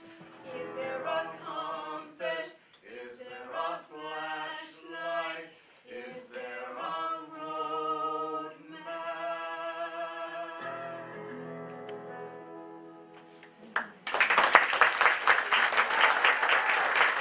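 A woman and a man singing the closing lines of a comic cabaret song as a duet, ending on a long held note. Audience applause starts suddenly about three seconds before the end.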